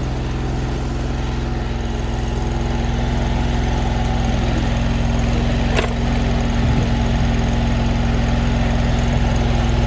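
Mini skid steer's engine running steadily, slowly growing louder, with one sharp click about six seconds in.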